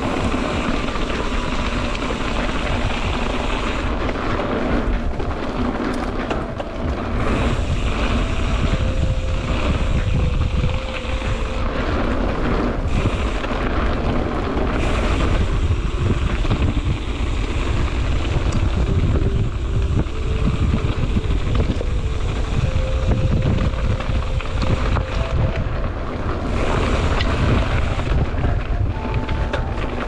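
Mountain bike descending a dirt trail: steady, loud wind rush on the camera microphone mixed with tyre and suspension rumble from the trail surface.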